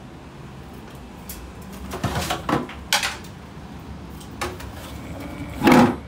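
Knocks and clatters of hands working at the water heater: a short cluster about two to three seconds in, and the loudest thump near the end.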